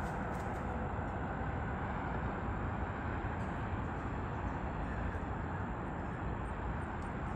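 Steady low rumble of distant city traffic, an even hum with no distinct events standing out.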